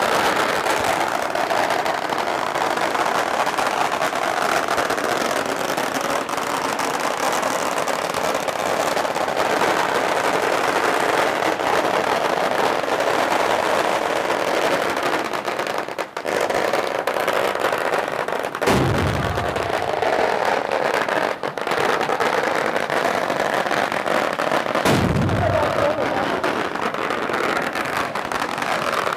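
Strings of firecrackers going off on the ground in a continuous, rapid crackle of pops. Two deep booms stand out over it, one about two-thirds of the way through and another a few seconds later.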